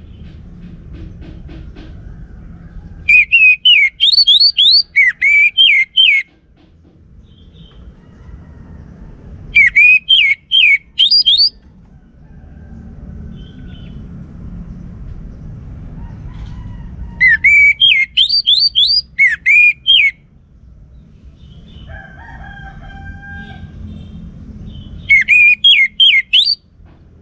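Orange-headed thrush singing: four loud phrases of rapid, swooping whistled notes, each lasting two to three seconds, with pauses between. A low rumbling background fills the gaps, and a fainter call comes from another bird during one pause.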